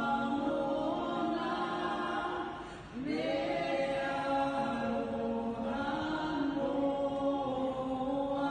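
A national anthem sung by many voices together, unaccompanied, in long held notes. The singing dips and pauses briefly about three seconds in, then a new phrase starts on a rising note.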